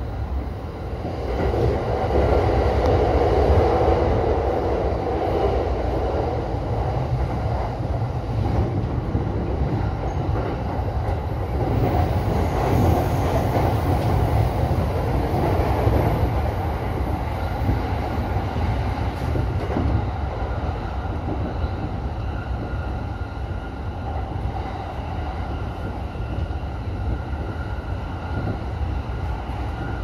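Running noise of a JR East E233 series electric train heard from the driver's cab at speed: a steady rumble of wheels on rail with some clickety-clack, a little louder for a couple of seconds near the start.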